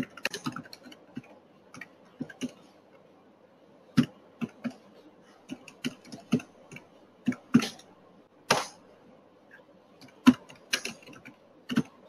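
Typing on a computer keyboard: irregular single keystrokes and short runs of clicks with pauses between them.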